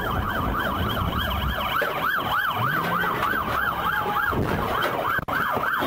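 Police siren on a fast yelp: a rising-and-falling wail about four times a second, with engine and road rumble underneath. It drops out for an instant about five seconds in.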